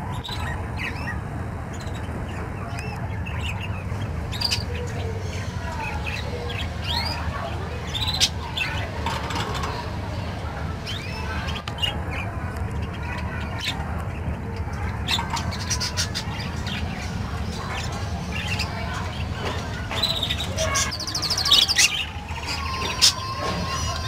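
Budgerigars chirping and chattering in short scattered calls, with a quick warble near the end, over a steady low hum.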